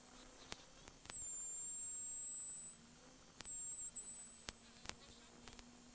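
Peugeot 106 XSI rally car heard from inside the cabin at speed: a thin, high whine that climbs with the revs and drops sharply at gear changes about a second in and again after about three seconds, with a few sharp knocks.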